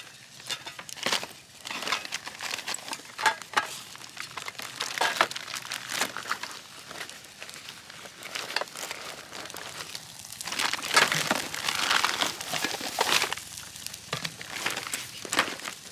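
Crinkling and rustling of packaging being handled, such as a plastic bag or foil, going on unevenly and loudest about two-thirds of the way through.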